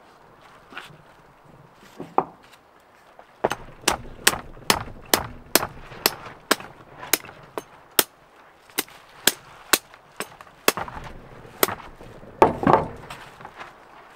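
Claw hammer tapping the CV joint of a 1988 Porsche 944 Turbo drive axle, knocking it off the splined shaft. There are about twenty sharp metallic taps at roughly two a second, then a louder clunk and scrape near the end.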